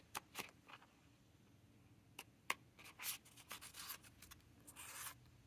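Ink swatch cards being flipped through by hand: a few light clicks of card against card in the first second, two more around two seconds in, then soft sliding and rubbing as cards are drawn apart.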